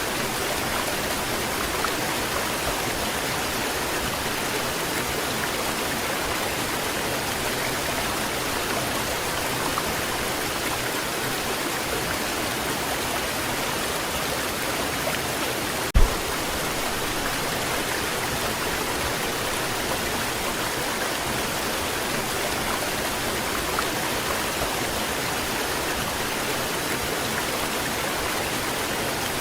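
Waterfall pouring steadily, a constant rushing of water. About halfway through there is a single short knock.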